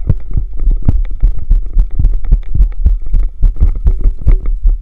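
A fast, irregular run of heavy low thumps, about four a second.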